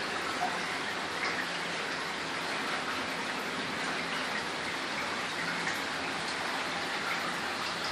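Small cave creek at its headwaters trickling over rocks: a steady watery hiss with small splashes scattered through it.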